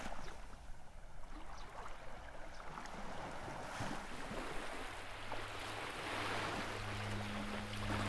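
Sea waves washing and lapping, swelling near the start and again toward the end. A low steady hum joins in about five seconds in.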